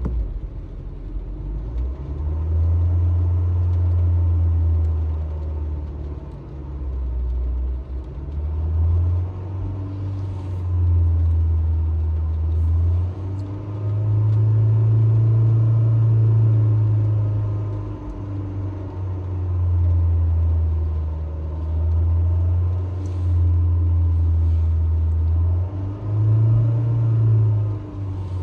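Honda HR-V engine being revved over and over: a low engine rumble that swells and eases off in pushes of one to four seconds each.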